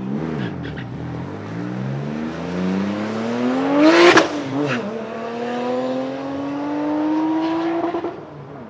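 Boosted Toyota Supra engine accelerating hard on a drag strip. Its pitch climbs steadily, then there is a brief sharp burst about four seconds in. After that the pitch drops and climbs again more slowly in the next gear.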